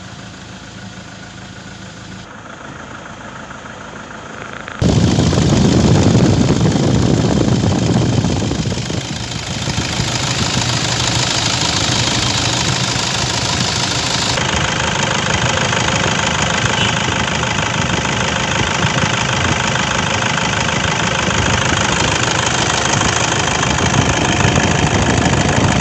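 Toyota Innova diesel engine idling steadily after an overhaul, running without the piston-to-bore knock that had sounded like injector tapping. It gets much louder about five seconds in.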